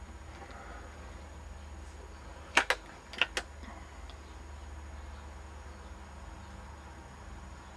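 Four sharp clicks from the Cometa Fenix 400 air rifle, in two close pairs about half a second apart, over a low steady background.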